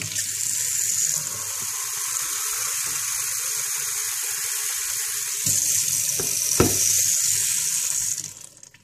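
Kitchen mixer tap running into a small plastic tub held under the stream in a stainless steel sink, a steady rush of water, with a single light knock about six and a half seconds in. The tap is turned off near the end and the flow dies away.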